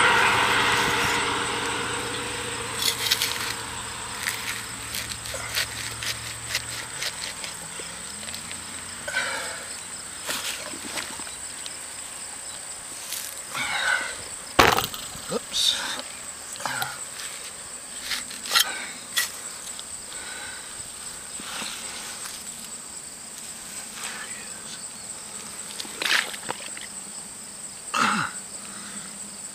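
A passing airplane's engine drone fades away over the first several seconds under a steady, high insect trill. Then come scattered short scrapes and rustles as a hand digs down through mud and grass into a crayfish burrow.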